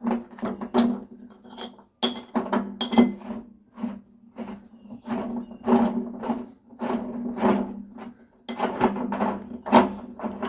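Electric water heater's screw-in heating element being loosened with a large element wrench: repeated scraping, rubbing and clinking of metal tool on the element nut, over a steady low hum.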